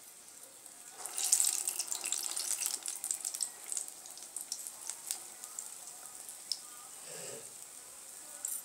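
Moong dal vada batter deep-frying in hot oil in a kadai. A fresh dollop goes in about a second in and the sizzle jumps louder with fine crackling, then settles back to a steady frying sizzle.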